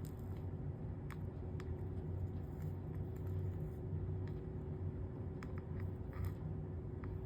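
Steady low hum with a few faint, light clicks and taps from soldering work on a copper-foiled stained-glass piece.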